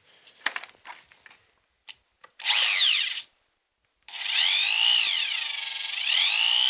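Corded electric drill being test-run: a few handling clicks, a short squeeze of the trigger whose motor whine falls away as it coasts down, then a longer run from about four seconds in with the pitch dipping and rising again as the trigger varies the speed, before settling steady at high speed.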